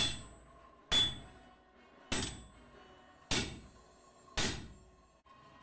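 Blacksmith's hammer striking a red-hot steel falchion blade on an anvil: five blows about a second apart, each ringing briefly.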